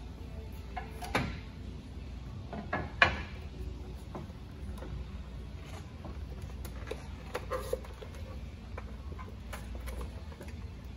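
Metal knocks and clunks as a Warn VR EVO 10-S winch is set down onto its steel winch plate and shifted into place: two sharp knocks about one and three seconds in, the second the loudest, then a few lighter taps, over a low steady hum.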